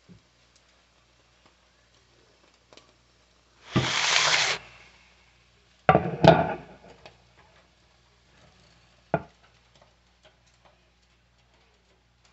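Kitchen clatter: a short hiss a little under a second long about four seconds in, then a few clunks about two seconds later and a single knock near three-quarters of the way through.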